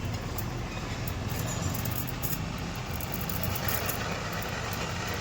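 A car engine idling steadily, an even low rumble.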